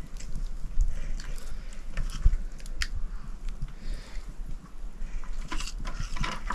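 Cooking over a wood fire: irregular small crackles and clicks from the fire and the aluminium pot of lentils, with a ladle stirring in the pot at the start.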